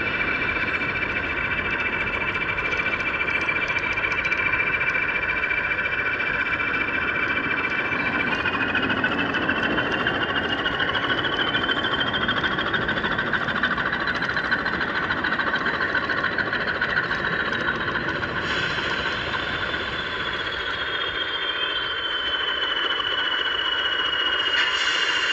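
O gauge model train running on garden track: the locomotive's motor and gears whine over the rumble of the wheels on the rails. The whine rises in pitch as the train speeds up about a third of the way in, and falls again later as it slows.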